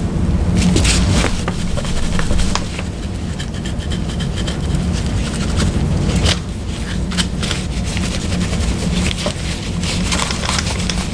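Plastic housing of a hot lather dispenser being wiped and scrubbed with warm water, irregular scraping and rubbing with small clicks, over a steady low hum.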